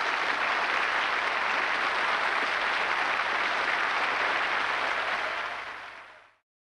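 Audience applauding steadily, fading out about five seconds in and gone by six and a half seconds.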